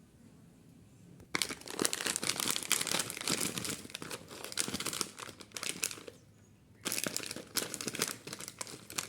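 Kinder Joy packaging being crinkled and handled as it is opened, in two spells of dense crackling with a short pause between them.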